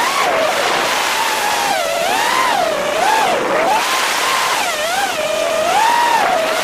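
Racing quadcopter's motors and propellers whining, heard from on board, the pitch swooping up and down again and again as the throttle changes.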